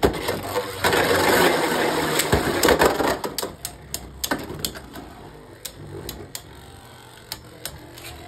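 Two Beyblade Burst tops, Mirage Fafnir and Choz-Achilles, launched with a sharp click into a plastic stadium and clashing. The first few seconds are a dense clatter of hits. After that, sparser light knocks and clicks follow as the tops keep spinning and touching.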